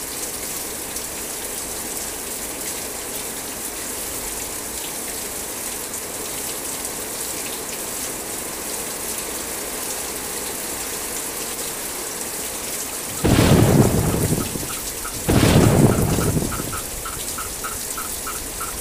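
Heavy rain falling steadily onto a steel framework and overgrown ground, a constant hiss. About 13 s in, two loud claps of thunder come about two seconds apart.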